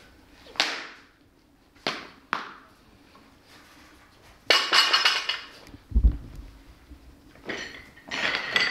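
Unloaded steel barbell clanking a few times, then set down on the floor about four and a half seconds in with a ringing metallic clatter, followed by a dull thud.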